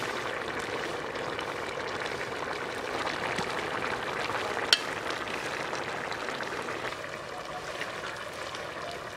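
Dry fish and vegetable curry boiling in an open metal pot over a wood fire: a steady bubbling hiss. One sharp click about halfway through.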